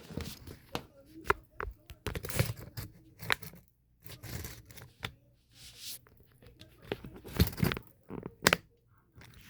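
Close handling noise: a series of irregular clicks and knocks mixed with short tearing, rustling sounds, the loudest knocks near the end.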